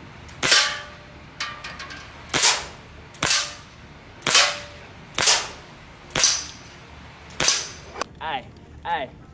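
Airsoft pistol firing a string of single sharp shots, about seven, roughly a second apart, at a metal drink can. Some shots are followed by a brief metallic ring.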